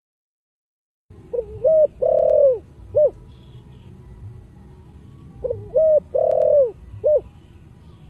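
Spotted dove cooing, starting about a second in: two matching song phrases about four seconds apart. Each phrase is two short coos, a longer drawn-out coo and a short closing coo.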